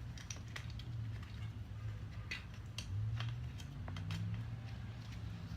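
Faint scattered clicks and rustles of hands working a bicycle tire and inner tube off the wheel rim, over a low steady hum.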